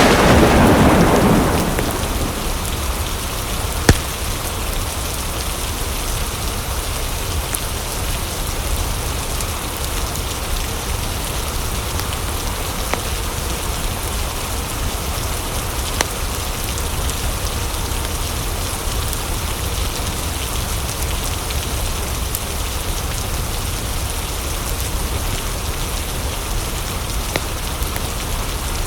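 Steady rain falling, with a low thunder rumble fading away in the first two seconds. A few sharp isolated clicks or pops cut through the rain, the loudest about four seconds in.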